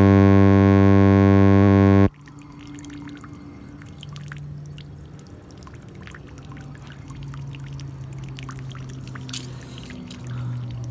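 A loud held musical note cuts off about two seconds in. Then water pours steadily from a leaking faucet that can't be shut off, with small scattered spatters.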